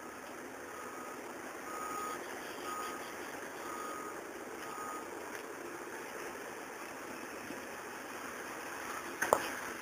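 Vehicle reversing alarm beeping five times, about once a second, over a steady mechanical noise. About nine seconds in comes a single sharp clank, the loudest sound.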